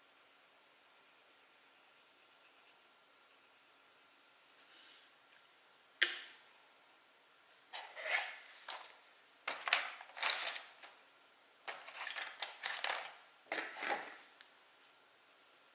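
A drawing tool scratching and rubbing across paper in a run of short, quick strokes, starting about six seconds in and stopping shortly before the end.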